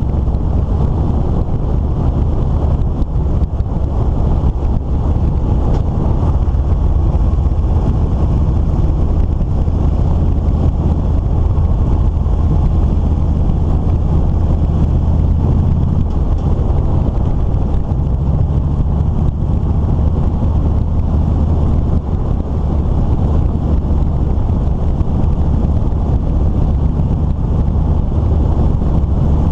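A vehicle's engine running steadily at road speed, its low hum constant, with wind rushing over the microphone.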